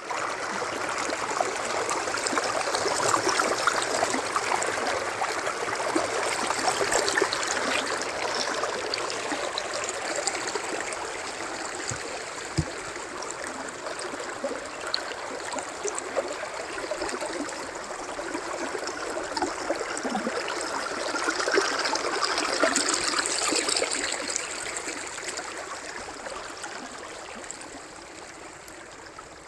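Stream water flowing, a steady rush that swells and eases and grows fainter near the end.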